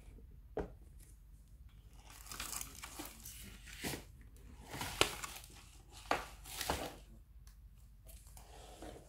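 Thin perforated plastic sheet of an AC air deflector being handled and bent, crinkling and crackling in irregular bursts with a few sharp clicks.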